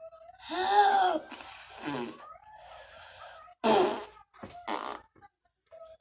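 A young child making silly noises with his mouth: a rising-and-falling squeal, then spluttering raspberries blown with his tongue out.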